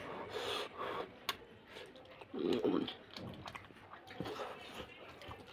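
A person eating fish curry and rice close to the microphone: wet chewing with many small mouth clicks and smacks, and one brief louder mouth noise about halfway through.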